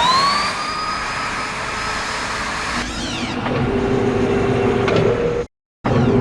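Film sound effect of the giant robot M.O.G.U.E.R.A.'s machinery: a mechanical whine that rises in pitch and levels off over a steady machine noise, then about three seconds in a quick falling sweep gives way to a lower, steady humming drone. It cuts off sharply about five and a half seconds in and the same drone starts again a moment later.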